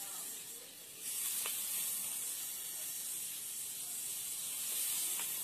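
Granulated sugar pouring from a bag into an upturned plastic bottle used as a funnel, the grains streaming down into a water jug: a steady high hiss that strengthens about a second in.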